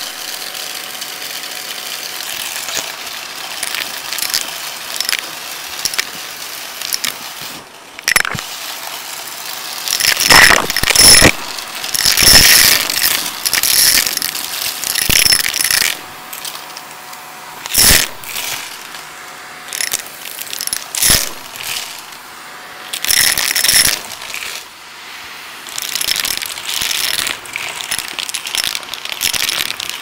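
Vacuum cleaner running, its wand sucking up coins and glass gems from carpet: a steady rush of air broken by repeated loud bursts of metal and glass clattering and rattling up the tube.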